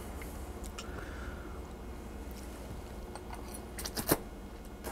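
Faint clicks of a metal fork against a plate as spaghetti is twirled and eaten, with a short, louder slurp about four seconds in as a strand of pasta is sucked into the mouth. A low steady hum lies underneath.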